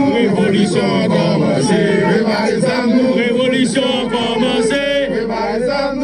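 A crowd of men chanting and singing together in chorus, many voices overlapping without a break.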